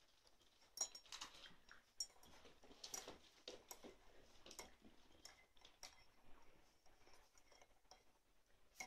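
Near silence with faint, scattered ticks and taps from puppies moving about on a wooden floor and sheet.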